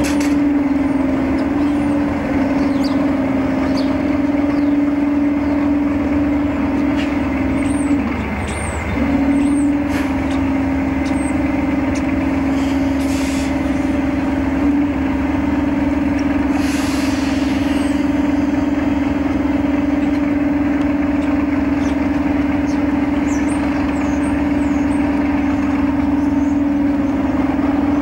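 Class 37 diesel locomotive's engine running with a steady drone, the note dipping briefly about eight seconds in.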